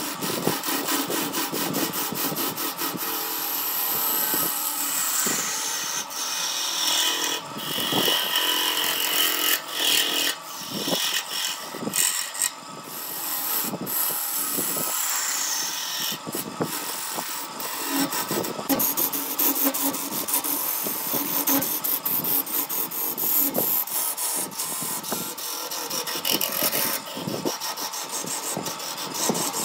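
Turning tool cutting the surface of a spinning wooden vase on a wood lathe: a continuous scraping hiss as shavings peel off, broken by frequent small clicks.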